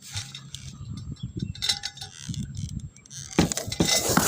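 Rustling, scraping and knocking close to the microphone, with light clicks at first and much louder dense rustling from a little past three seconds in.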